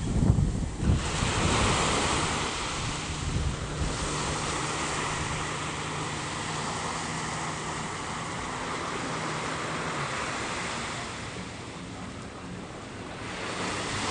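Sea surf washing onto a sandy beach, with wind buffeting the microphone, strongest in the first second or so.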